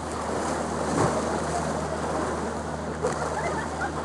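Steady low hum of a boat motor, with water lapping and wind buffeting the microphone.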